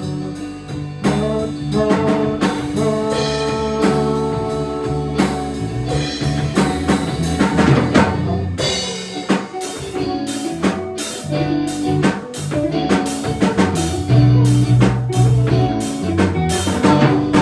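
Instrumental passage of a rock song: guitar lines held over a drum kit beat, with the drumming getting busier about halfway through.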